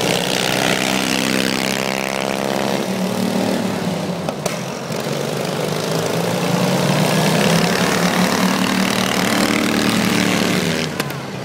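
Several riding lawn mower engines running hard as the mowers race around an ice track, their pitch rising and falling as they pass by.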